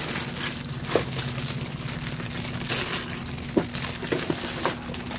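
Thin clear plastic bags crinkling and rustling as toy pieces inside them are handled and pulled open, in irregular crackles, over a steady low hum.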